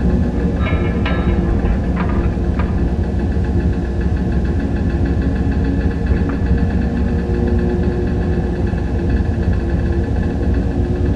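Dark ambient machine drone: a dense, steady hum heaviest in the low end, with a cluster of clattering knocks in the first few seconds and one faint knock near the middle.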